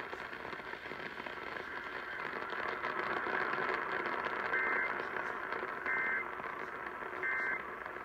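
AM radio tuned to KDKA on 1020 kHz, playing a steady hiss of static. Then come three short two-tone EAS data bursts about 1.3 s apart, the end-of-message signal that closes the station's Required Weekly Test.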